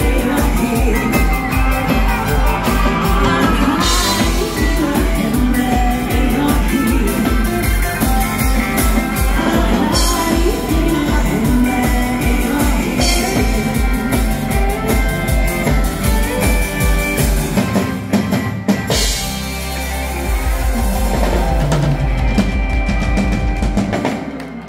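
A live dansband plays a song: a female lead singer over a drum kit keeping a steady bass-drum beat, with keyboards and cymbal crashes. About three quarters through, the beat stops and the band holds a closing chord, which dies away near the end.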